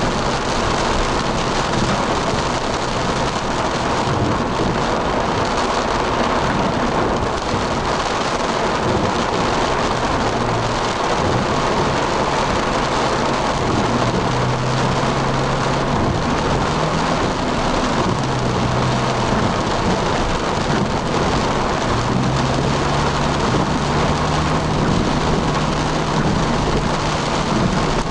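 Heavy rain on a moving car, heard from inside the cabin: a steady rush of rain and wet-road noise, with a low engine hum that shifts in pitch now and then.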